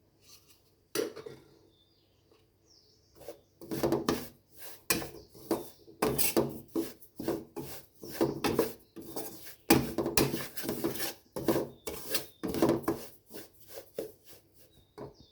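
A spatula scraping and stirring semolina, coconut and rice flour as they roast in a kadai, in quick repeated rasping strokes: one scrape about a second in, then a steady run of strokes that stops just before the end.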